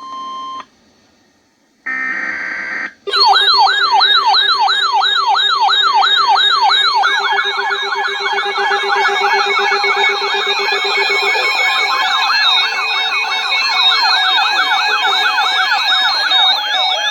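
Emergency alert broadcast attention signal: a loud electronic warble that sweeps rapidly up and down in pitch about three times a second. It begins about three seconds in, after a steady beep cuts off and a second-long burst of harsh noise.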